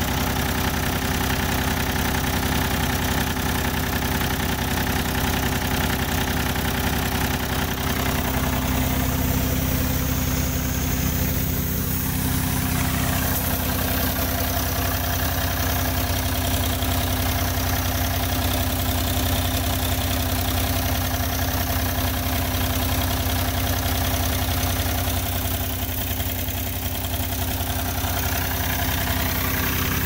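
Airman portable air compressor's diesel engine idling, a steady unbroken drone.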